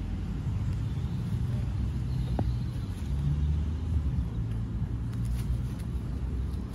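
Steady low outdoor rumble with no break.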